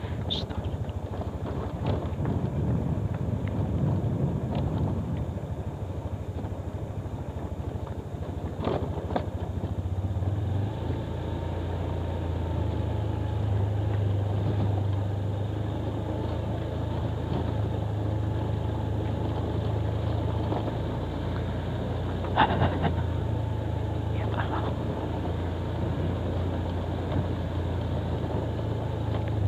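Motorcycle engine running at low speed on a rough dirt track, settling into a steady low hum after about ten seconds, with a couple of sharp knocks.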